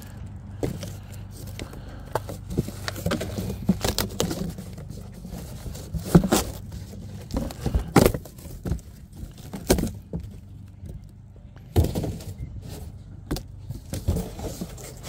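Irregular knocks and clatters, as of objects being handled and set down, over a steady low hum.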